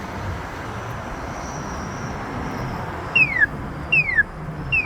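Polara iNS accessible pedestrian signal sounding its walk indication: a loud, bird-like chirp that falls in pitch, repeating a little faster than once a second, starting about three seconds in. Before it there is only steady traffic noise.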